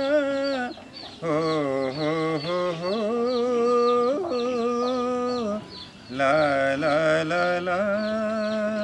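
Nepali folk music instrumental introduction: a bowed sarangi-style melody of held, wavering notes that step up and down, with two lines moving together in places and short breaks about a second in and near six seconds.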